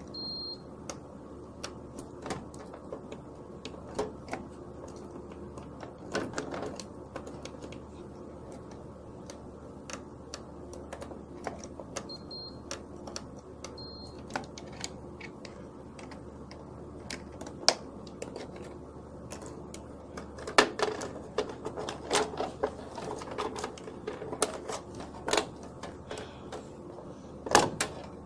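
Irregular clicks and taps of multimeter test probes and wires being handled against the terminals of an electrical control panel, the loudest in the second half. A clamp multimeter's continuity buzzer gives short high beeps, once near the start and twice about halfway through, over a faint steady hum.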